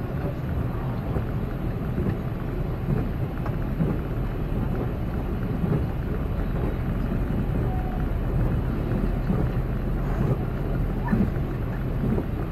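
A passenger train running along the track, heard from inside the carriage: a steady low rumble with a few faint knocks.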